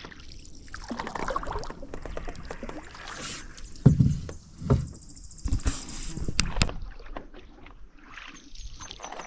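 Canoe paddle strokes swishing and dripping through creek water, with a few knocks about four to six seconds in.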